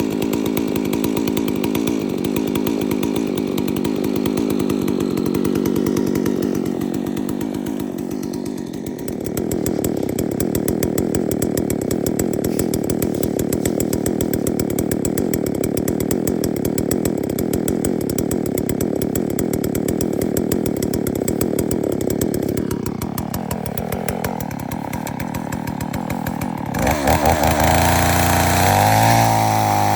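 Two-stroke chainsaw running at speed and cutting through a large log. Its engine note sinks under load a little past two-thirds through, then rises again near the end.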